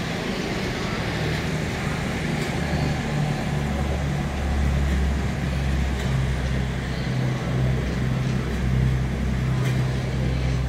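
CrossCountry Voyager diesel-electric multiple units, a Class 221 coupled to a Class 220, pulling out with their underfloor diesel engines running under power. The steady low hum grows louder about four seconds in.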